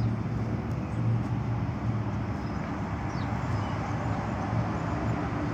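Steady street traffic noise with a constant low engine hum.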